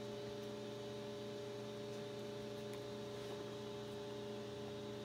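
A steady electrical hum made of several even tones, with no change in pitch or level.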